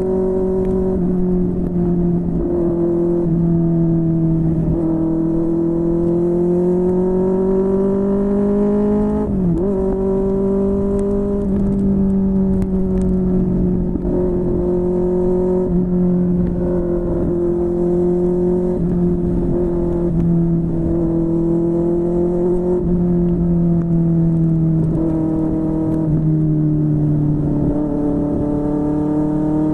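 QJMotor SRK600 inline-four motorcycle engine through a Yoshimura R11 exhaust, running steadily under way. Its pitch rises and falls gently, with one quick drop and recovery about nine and a half seconds in, like a gear change, over wind and road noise.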